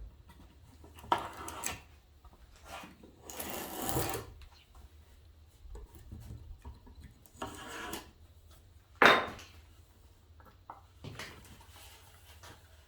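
Knife cutting through the thin layer of wood left by a just-under-depth table saw cut, freeing the lid from a wooden box: a series of separate scraping strokes, one longer than a second, with a couple of short sharp knocks.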